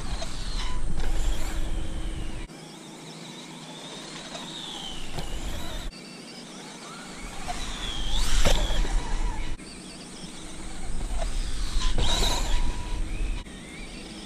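Losi Promoto-MX radio-controlled dirt bike's electric motor whining, rising and falling in pitch as the throttle is worked around the track and over jumps, with two louder swells about halfway through and near the end.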